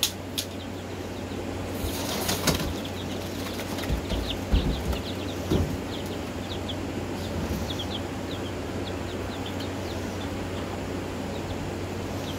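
Young Black Marans chickens peeping in many short, falling chirps, with a brief flurry of wing flapping about two seconds in and a few knocks a little later. A steady low hum runs underneath.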